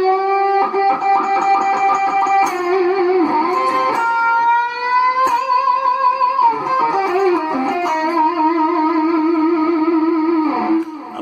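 Electric guitar playing a slow blues lick of held single notes: a string bent up about four seconds in, and wide vibrato on the long held notes in the second half.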